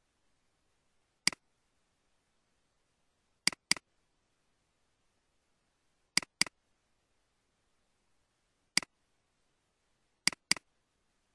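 Computer mouse clicks: a single click, then a quick double click, another double click, a single click and a last double click near the end, with silence between.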